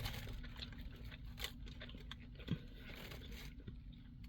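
Faint chewing and crunching of food, with a few small scattered clicks.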